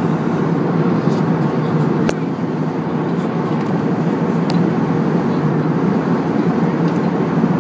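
Steady airliner cabin noise in flight: the even rushing of engines and airflow heard from a window seat, with a couple of short clicks.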